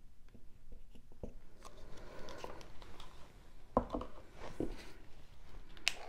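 Faint handling sounds of paint work: a plastic tool scraping and tapping lightly against the canvas, with a few soft knocks about two-thirds of the way through and a sharp click near the end.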